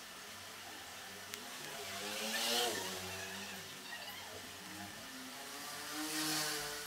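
Two motor vehicles passing by, each swelling to a peak and fading, the first about two and a half seconds in and the second near the end; the first engine's pitch rises and then drops as it passes.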